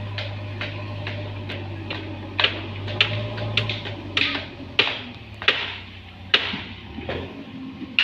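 JCB backhoe loader's diesel engine running steadily, fading away over the second half, with sharp clicks and clanks at irregular intervals.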